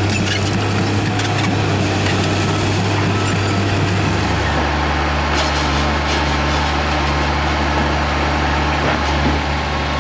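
Heavy machine's engine running steadily, its note dropping to a lower speed about four seconds in, with a thin high whine that stops at about the same point.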